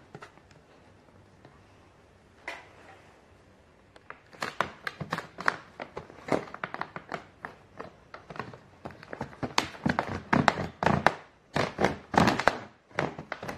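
Hard-shell plastic suitcase being forced open along its seam: irregular clicks, snaps and cracks of the plastic shell. They start about four seconds in and come thicker and louder toward the end.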